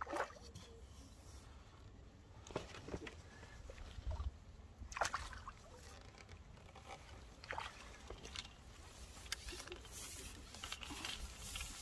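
A hooked tench splashing at the surface in several irregular bursts as it is drawn into a landing net, then water pouring and dripping from the mesh as the net is lifted out near the end.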